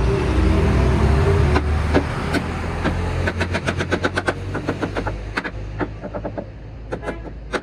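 Hammer blows on a wooden frame: a quick run of sharp knocks, several a second, starting about a second and a half in, with a few more near the end. A low steady rumble fills the first second and a half.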